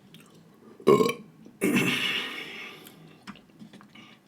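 A man burps loudly while eating: a short sharp sound about a second in, then a longer burp lasting just over a second that fades out.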